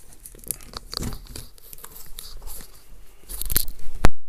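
Crackling, crunching handling noises at a table, ending in a series of loud knocks near the end, the sharpest just after four seconds, as the camera is grabbed and tipped up.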